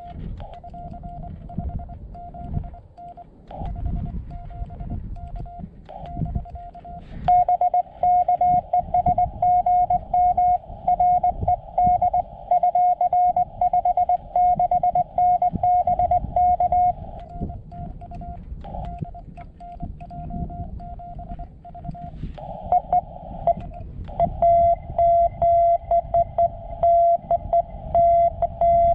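Morse code (CW) from a portable ham radio: a single tone keyed on and off in dots and dashes. A fainter keyed signal gives way to a louder one about seven seconds in until about seventeen seconds, and the louder one comes back from about twenty-four seconds.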